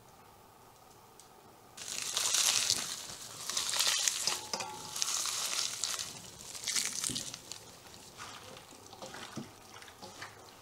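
Rubber-gloved hands mixing oiled beef liver pieces and sliced red onion in a stainless steel bowl: wet squelching and rustling that starts about two seconds in, comes in several swells, and dies down to a few small clicks after about seven seconds.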